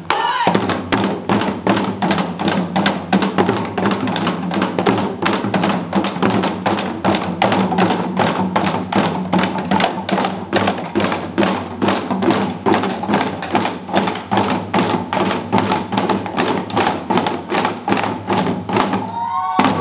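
Janggu, Korean hourglass drums, struck together in a fast, even rhythm of about four beats a second over music with steady low tones. The drumming stops just before the end.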